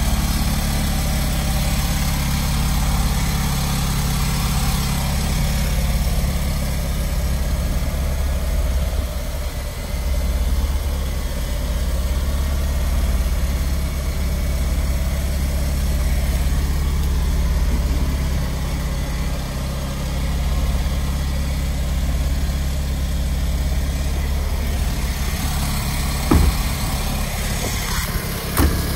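1971 Fiat 500L's 479cc air-cooled twin-cylinder engine idling steadily. Two short knocks near the end.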